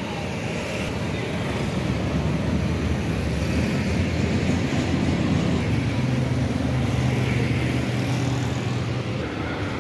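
Motor-vehicle engine and road traffic noise: a steady low rumble that grows a little louder after the first second or two, with a steady low engine hum in its last few seconds, easing just before the end.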